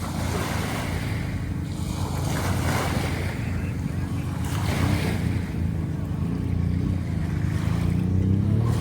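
Waves washing onto the beach with wind buffeting the microphone, the rush swelling a couple of times, over a steady low drone.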